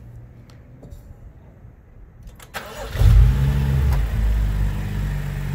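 A BMW 435i's turbocharged straight-six being started about two and a half seconds in: a brief crank, then it catches with a short flare of revs and settles into a steady idle. This is the start of a 15-minute idle, with an engine oil treatment freshly added.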